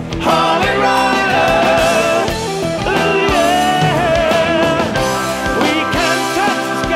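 Rock music with electric guitar and a singing voice.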